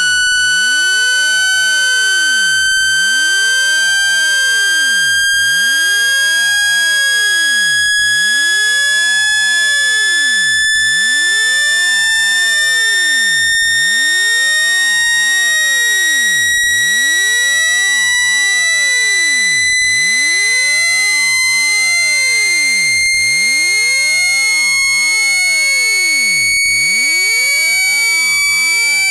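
Synthesized speaker-cleaning tone: a loud, harsh electronic buzz that glides slowly and steadily upward in pitch, at constant loudness. It is played through a phone speaker to shake out water and dust.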